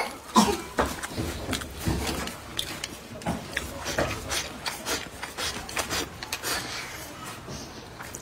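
A person eating braised carp close to the microphone: sucking and smacking at the fish, with an irregular run of short clicks and slurps.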